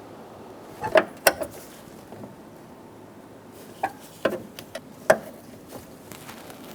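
A wrench tightening door hinge bolts to torque: sharp metal clicks, two about a second in and a few more between four and five seconds in.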